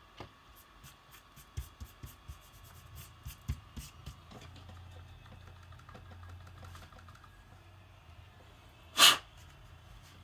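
Light clicks and taps as a smartwatch is handled and set down on a hard surface, then a faint steady low hum. About nine seconds in, a short, loud burst of hiss.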